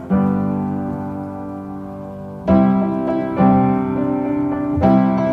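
Background music: piano chords struck about every second or two, each ringing on and fading, between sung lines of a song.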